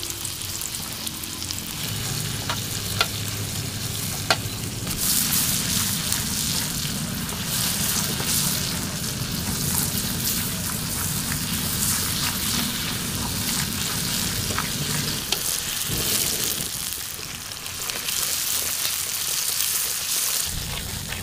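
Sliced shallots, garlic and chillies sizzling in hot oil in a wok, stirred with a wooden spatula that clicks against the pan a few times.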